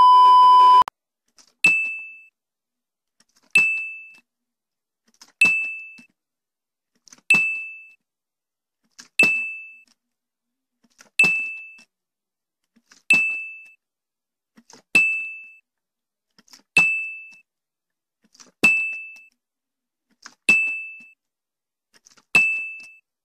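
A steady TV test-pattern beep for under a second, then a ding sound effect twelve times, about every two seconds. Each chime begins with a short knock as the water bottle lands, marking one successful bottle flip on the counter.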